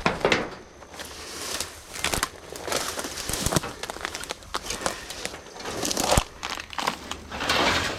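Dry leaf litter and debris rustling and crackling irregularly as someone moves through and handles it, with a few sharp knocks.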